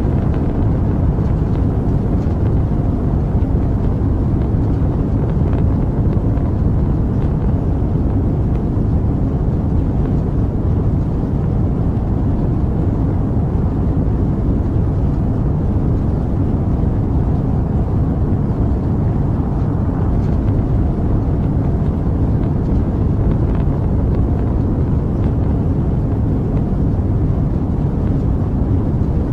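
Rocket engine noise: a steady, loud, low rumble with most of its weight in the bass, unbroken and even in level throughout.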